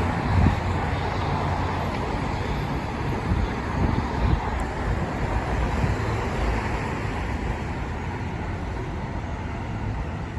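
Fire trucks' diesel engines running amid street traffic: a steady low rumble, with a few brief louder bumps about three and a half to four and a half seconds in.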